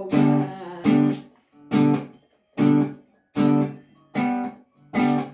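Guitar music: short strummed chords struck in an even rhythm, about one a second, each dying away quickly before the next.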